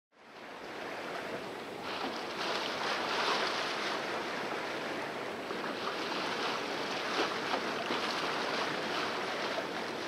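Sea water rushing and splashing along the hull of a sailboat under way, with wind over the deck. A steady wash that fades in over the first half second and grows fuller about two seconds in.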